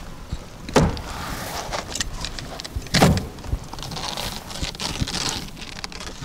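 Rustling and scraping of a stiff polypropylene drainage mesh being handled and pressed against a wall, with many small ticks and two sharp knocks about two seconds apart.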